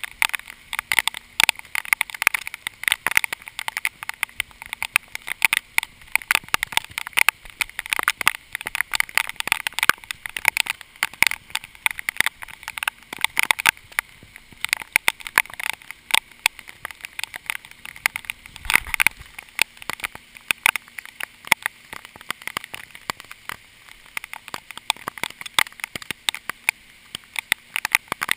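Raindrops striking the camera's housing and microphone as a dense, irregular patter of sharp taps during a heavy downpour, with a brief low rumble about two-thirds of the way through.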